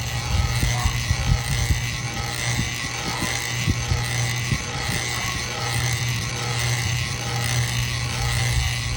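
Ceiling fan running steadily: a strong low hum with a faint, steady high whine, and irregular low thumps throughout.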